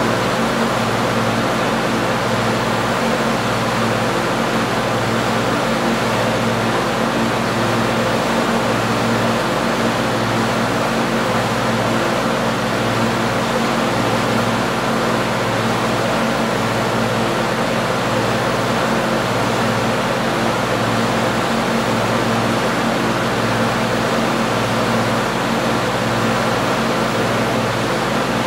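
Tractor engine running at a steady speed, an even hum that does not change.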